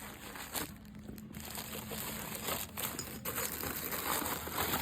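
Packaging crinkling and rustling as items are unwrapped from a parcel, with a few small clicks of handling.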